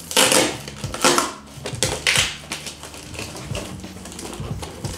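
Cardboard box being torn open by hand: three loud rips and crunches of cardboard in the first two seconds or so, then quieter scratching and rustling of the packaging.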